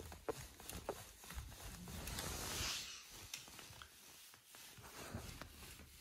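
Quiet rustling of bedding and fabric with a few light taps and knocks, as from a toddler moving about on a bed.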